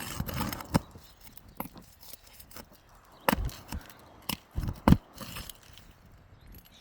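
A metal nail-pulling tool scraping and knocking under asphalt roof shingles while working roofing nails loose: faint scraping with scattered sharp knocks, a cluster of them past the middle, the last the loudest.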